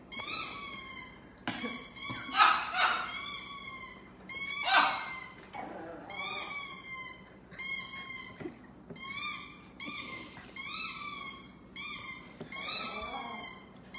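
Ducklings peeping in a fast series of high, falling chirps, with a small dog giving two short howls about two and a half and five seconds in, and a few fainter whines later.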